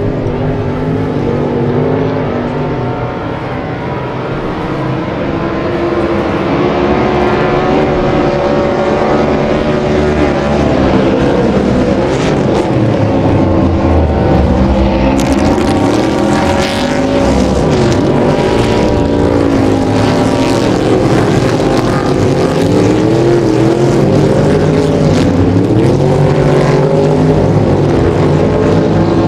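Cracker Box inboard race boats' engines running hard, their pitch rising and falling with the throttle. A hissier edge comes in about halfway through.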